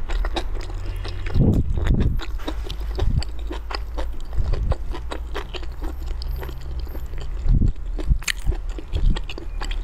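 Close-miked chewing and biting of pork-wrapped enoki mushroom rolls: a run of wet smacking and small crunching clicks, with a steady low hum underneath.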